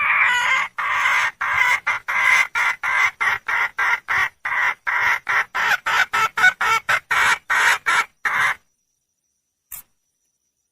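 Female red junglefowl (wild hen) calling in a long run of short, repeated clucks, about three a second and speeding up, the call a wild hen gives to bring a cock to her. The calling stops near the end, followed by a single short click.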